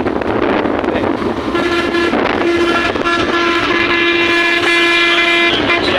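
Vehicle horn honking in traffic: a short honk, then one long held blast of about three seconds, over steady road and wind noise.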